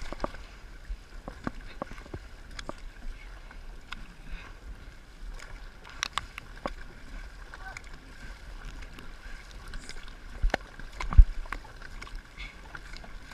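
Dragon boat paddling: paddles splashing and knocking irregularly against the water and the boat over a steady low rumble, with one sharp knock, the loudest, about eleven seconds in.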